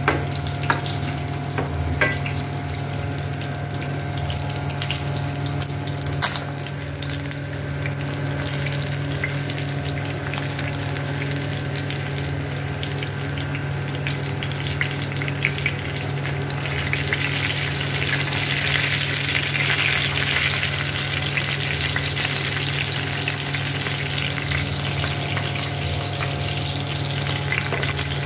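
Pearl spot (karimeen) fish shallow-frying in oil in a pan, sizzling steadily, with a few sharp clicks of the spatula against the pan. The sizzle swells for a few seconds a little past the middle.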